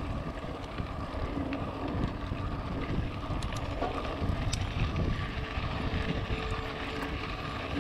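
Wind noise on the microphone of a camera riding a mountain bike, over the rumble of its tyres rolling on a dirt trail, with a few small clicks and rattles from the bike.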